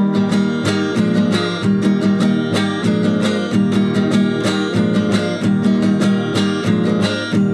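Acoustic guitar strummed in a steady, quick rhythm, playing a tonada accompaniment with no voice.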